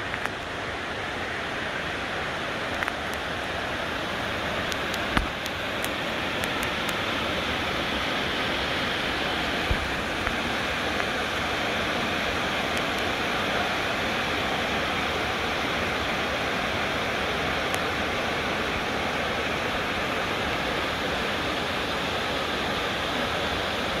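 Steady rush of falling and cascading water from a waterfall and a rocky stream, with a couple of light knocks about five and ten seconds in.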